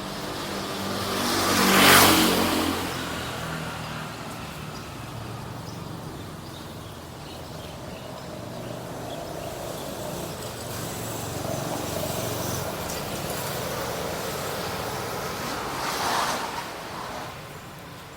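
Street traffic: a motor vehicle passes close, loudest about two seconds in. Engine drone continues in between, and a second vehicle passes near the end.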